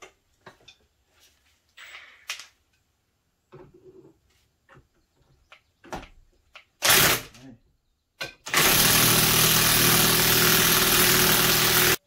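Cordless impact wrench hammering: a short blip about seven seconds in, then a steady run of about three and a half seconds near the end, driving a threaded press that draws a wheel bearing into a Jeep Compass steering knuckle. A few light clicks and knocks of tool handling come first.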